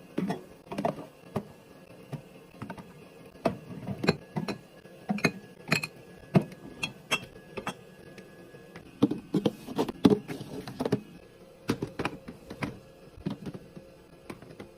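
Irregular clicks, knocks and light clinks of containers, bottles and lids being handled and set down while restocking a fridge, a few with a brief high ring.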